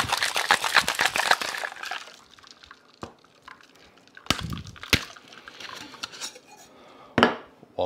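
A cocktail shaker rattling fast and hard as it is shaken, stopping about two seconds in. After that come a few separate sharp knocks and clinks as the shaker is handled and opened.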